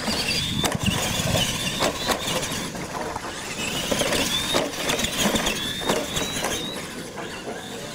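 Radio-controlled monster trucks racing over dirt: the motors and gears whine, rising and dipping again and again with the throttle, with scattered knocks as the trucks hit and land off the ramps.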